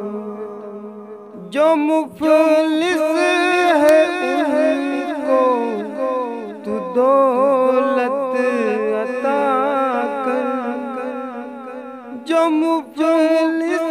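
A man singing an Urdu naat a cappella in long, ornamented wavering lines over a steady hummed drone. The voice comes in loudly about a second and a half in and pauses briefly twice.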